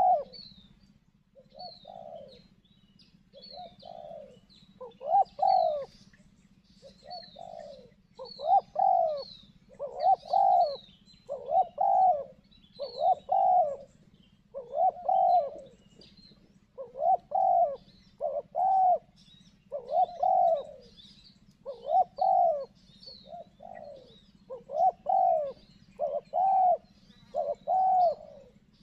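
Spotted doves cooing over and over, the low hooting notes coming in pairs and threes, one phrase after another. Thin high chirps of small birds sound faintly in the background.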